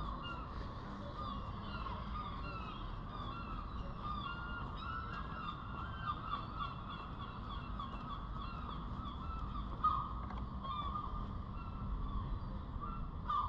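A flock of birds calling, many short overlapping calls, over a steady low background rumble.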